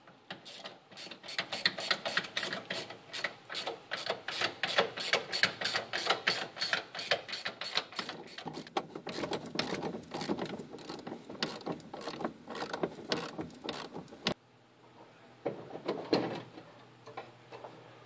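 Hand ratchet wrench being worked in short strokes, a steady run of sharp clicks about three a second that stops abruptly about fourteen seconds in. A few scattered clicks and knocks follow.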